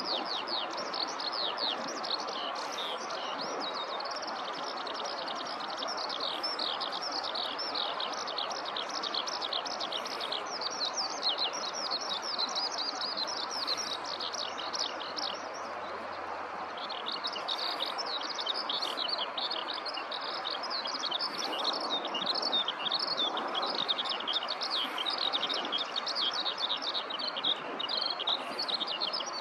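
Eurasian skylark singing from the ground: a long, unbroken run of rapid, high warbling notes that stops for a second or two about halfway through, then starts again, over a steady background hiss.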